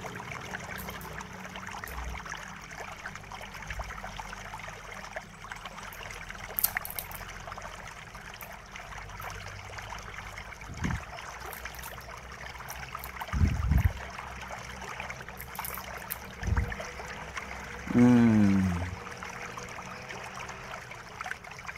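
Steady hiss with a few dull knocks from hands and a screwdriver working inside an opened laptop while its processor heatsink is unscrewed and lifted out. Near the end there is a short, louder sound that falls in pitch.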